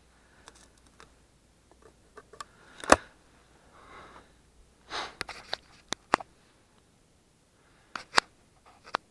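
Footsteps and rustling through dry grass and brush, an irregular run of crunches and snaps, the sharpest about three seconds in and again about eight seconds in.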